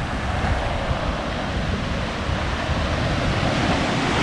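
Ocean surf breaking and washing through the shallows, with wind buffeting the microphone in a steady low rumble.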